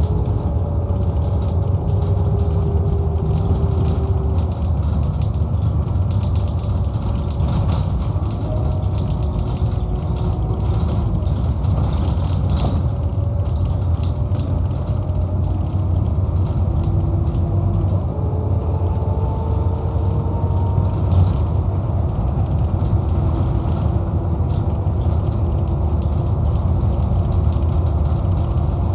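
Scania K230UB Omnilink bus driving, heard from inside the saloon: its Scania DC09 9.0-litre five-cylinder diesel gives a steady low drone. Whining tones from the ZF Ecomat 5-speed automatic gearbox rise and fall several times as the bus accelerates and changes gear, with light rattles and creaks from the interior.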